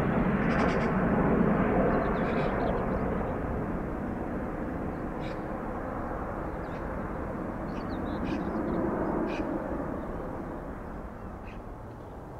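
Boeing 787 jet engines climbing away after takeoff: a broad, low jet noise that fades steadily as the aircraft recedes. Birds chirp briefly several times over it.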